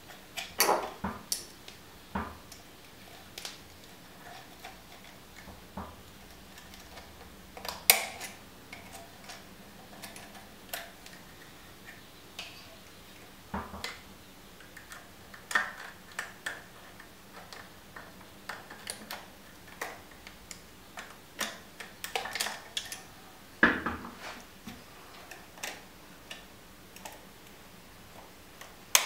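Scattered small metallic clicks and taps as a circlip is worked onto the air-spring shaft of a RockShox Boxxer fork's air cartridge, with two sharper clicks along the way.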